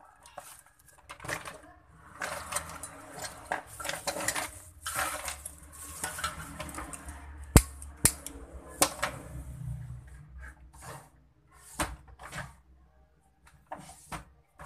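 Small metal hand tools clattering and being handled on a workbench, a busy run of rattling and rummaging with three sharp clicks about halfway through, then scattered knocks.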